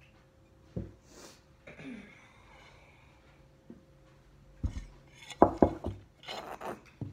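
A plastic gallon iced-tea jug and a plate being handled and set down on a cloth-covered table: a knock early on, light rubbing and handling, then a quick cluster of knocks and clatter, the loudest, about five and a half seconds in, and one more knock at the end.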